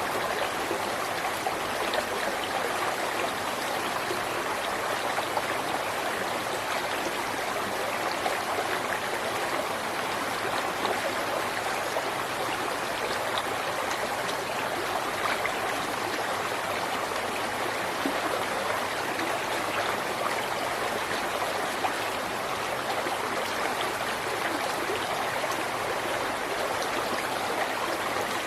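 River water flowing and splashing over rocks, a steady rushing and babbling with small bright splashes throughout.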